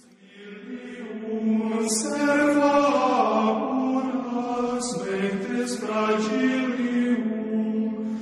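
Sacred chant sung in long, slowly moving held notes, with a few short breaths or sharp consonants between phrases; it fades in over the first second or so.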